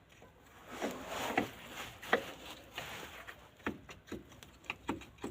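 Scattered metallic clicks and knocks, with a stretch of scraping about a second in, from hand work on a car's front suspension ball joint and its fasteners.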